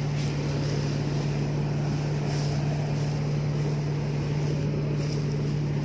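Rice combine harvester engine running steadily, a constant hum that does not change in pitch or level.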